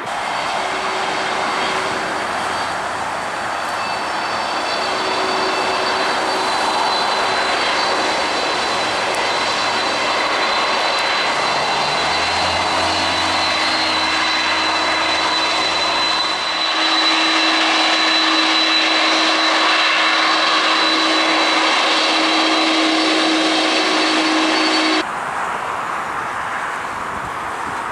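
Jet airliner engines running: a loud, steady noise with a high fan whine and lower steady tones. It changes abruptly about two-thirds of the way through and drops to a quieter, duller noise near the end.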